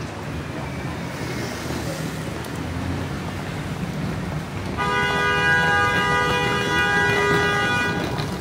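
Street traffic, then a vehicle horn held in one long steady blast of about three seconds, starting about five seconds in.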